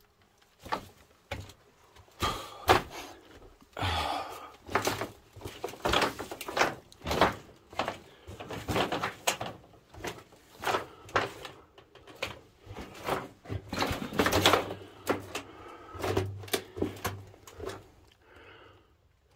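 Footsteps on loose pipes covering a mine tunnel floor: irregular knocks and clatter, about two a second, as the pipes shift and strike each other underfoot, with some scraping between steps.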